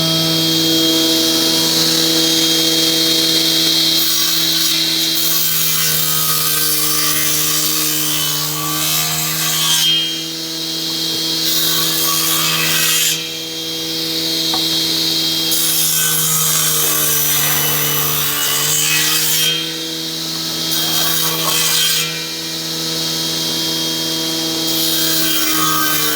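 An electric power tool working wood: a steady motor hum under a rasping hiss from the wood, in passes a few seconds long with short breaks between them. The motor's pitch sags a little under load near the middle.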